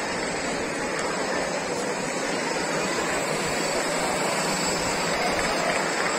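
Small drone's propellers whirring, a steady rushing noise that holds even throughout.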